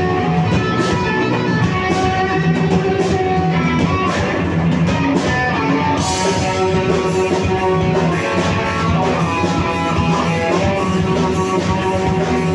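Live rock band playing: strummed electric guitars over a drum kit, at a steady loud level. The cymbals come in brighter about halfway through.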